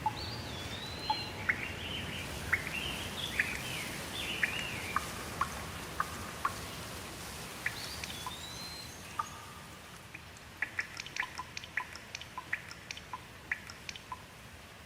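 Steady rain hiss with a bird calling over it in short whistled, swooping notes, followed near the end by a quick run of sharp ticks as the rain eases a little.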